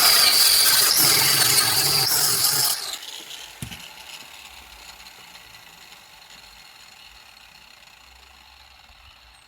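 Angle grinder fitted with the disc he calls the "death wheel", grinding back a fresh weld on steel bodywork for about three seconds. It is then switched off and spins down, its whine slowly fading, with a single light knock partway through the run-down.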